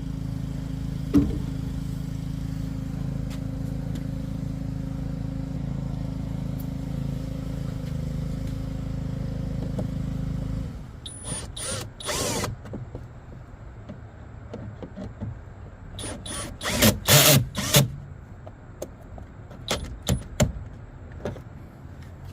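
Steady low hum that cuts off suddenly about eleven seconds in, followed by clicks and several short whirring bursts of a power driver as a new exterior door handle is fitted and fastened on a pickup truck door.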